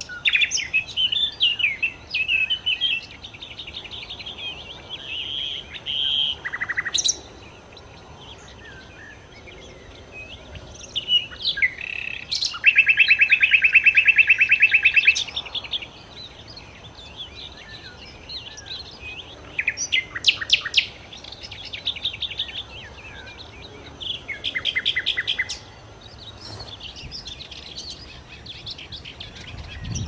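Sikatan londo songbird singing in separate phrases with pauses between them: high warbled runs, a loud, fast, even trill lasting about two and a half seconds near the middle, and quick series of sharp notes later on.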